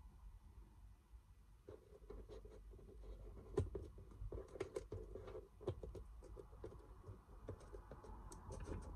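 Faint irregular taps, clicks and light scratching of fingertips setting small pearls onto a cardboard box lid.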